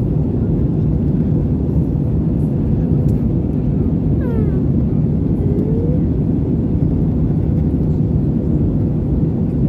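Airbus A320neo airliner in flight, a loud, steady low rumble of engines and airflow with a faint steady hum, as heard aboard. About four seconds in, a brief high sound glides down and then back up.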